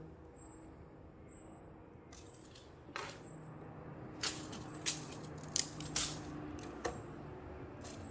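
Faint room hum, then about six sharp, light clicks and taps spread over a few seconds, starting about three seconds in.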